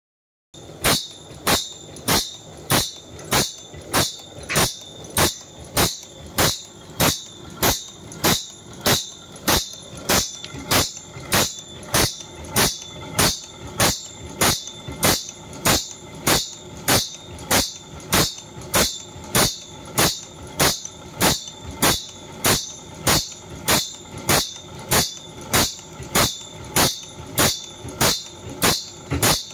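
Automatic band saw blade sharpening machine at work. Its motor-driven abrasive grinding wheel runs steadily while the machine steps the blade forward and grinds one tooth per stroke. The result is a short, sharp grinding stroke repeating evenly, about three every two seconds, starting about half a second in.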